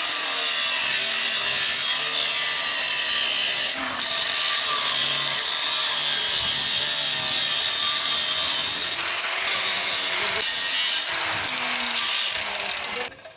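Stick-welding (arc welding) arc crackling and hissing steadily, with a few brief dips, then cutting off sharply near the end as the arc is broken.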